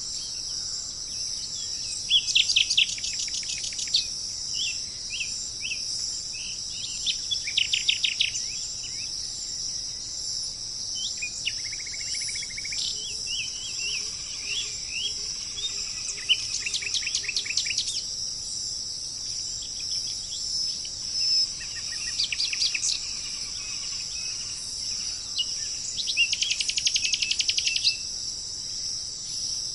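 Songbirds calling, several times giving quick runs of rapid repeated chirps and scattered single notes, over a steady high insect chorus of crickets or cicadas.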